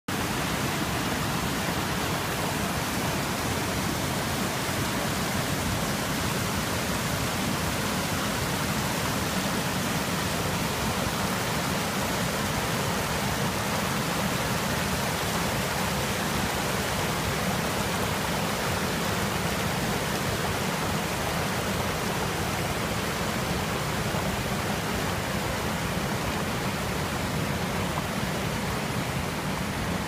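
River water rushing over rocks and small cascades: a steady, even rush with no breaks.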